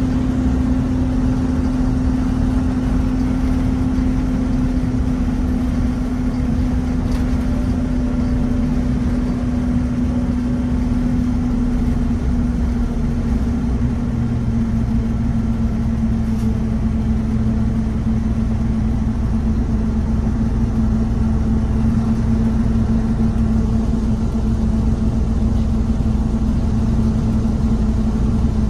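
Scania N230UB OmniCity bus's five-cylinder diesel engine running, heard from inside the bus: a steady drone with a strong hum whose pitch sinks slightly over the stretch.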